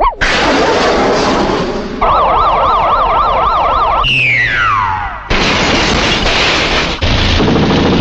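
Cartoon sound effects: a rushing whoosh, then a warbling siren-like whistle for about two seconds, then a steeply falling whistle. About five seconds in it gives way to a loud, dense noisy din.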